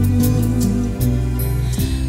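Slow, gentle background music: held notes over a sustained bass line that shifts to a new chord about a second in.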